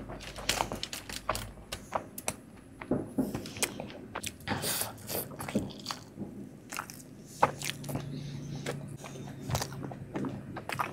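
Close-miked eating of Indian sweets: bites and chewing with wet mouth clicks, coming as irregular short clicks and a few longer smacking bursts.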